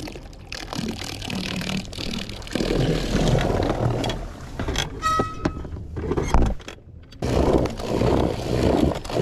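Bow-mounted electric trolling motor running, its propeller churning the water in very shallow water, with scrapes and knocks on the boat deck and a brief whine about five seconds in.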